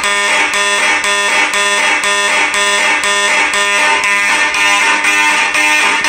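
Mechanical fire alarm horns, among them a Federal Signal Vibratone-type horn, buzzing loudly in march time at about two blasts a second. This is the evacuation signal after a manual pull station has been activated.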